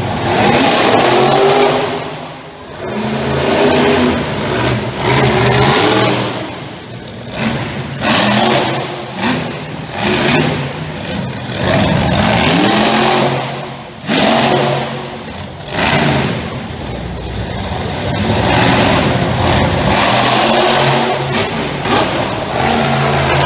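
Monster truck engine revving hard over and over, in loud surges that rise and fall in pitch with short dips between them every couple of seconds.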